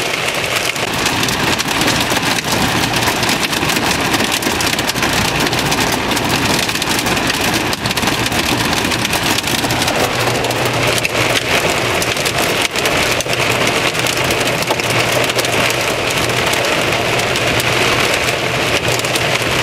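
Heavy rain pelting the windshield and roof of a moving car, heard from inside the cabin: a dense steady hiss full of sharp individual hits. The car's low steady hum runs underneath.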